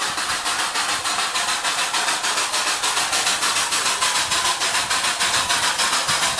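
The 15-inch gauge 0-8-2 steam locomotive 'River Irt' chuffing as it moves off slowly, about four to five exhaust beats a second over a steady hiss of steam blowing from its cylinders.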